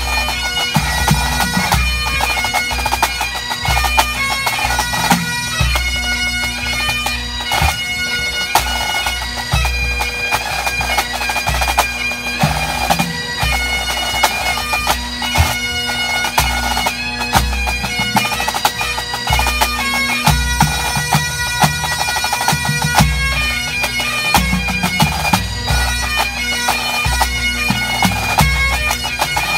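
Pipe band playing: Great Highland bagpipes, their steady drones under a changing chanter melody, with the band's drums beating in time.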